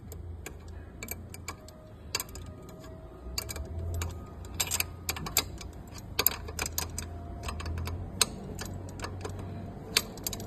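Wrench working the chain adjuster bolt on a dirt bike's rear swingarm: irregular metallic clicks and clinks, a few ringing briefly, as the bolt is tightened to lock the chain tension.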